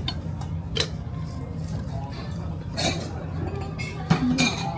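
Cutlery and dishes clinking at a dinner table during a meal: a few separate sharp clinks, about a second in, near three seconds and just after four seconds, over a steady low hum of restaurant background noise.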